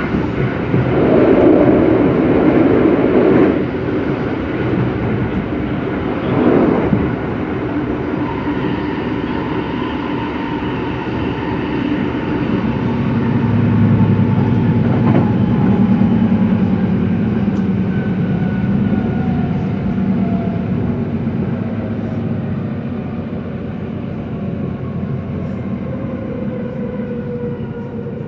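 Inside a local electric train on the San'yō Main Line: steady rumble of wheels on rail, with two louder whooshes in the first seven seconds. In the second half, the motor whine falls steadily in pitch as the train slows into a station.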